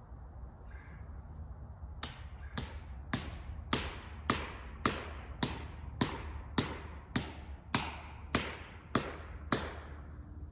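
A hammer driving a felling wedge into a tree's back cut: about fourteen sharp, ringing blows at a steady pace of a little under two a second, starting about two seconds in. The blows open the cut so the tree leans the chosen way.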